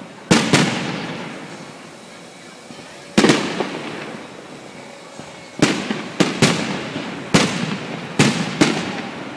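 Aerial firework shells bursting overhead: sharp bangs, two near the start, two about three seconds in, then a quicker string of about six from five and a half seconds on, each trailing off in a long rolling echo.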